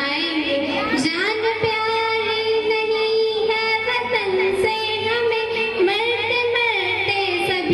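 A girl singing a Hindi patriotic film song into a handheld microphone, one voice holding long, sustained notes with slides between them.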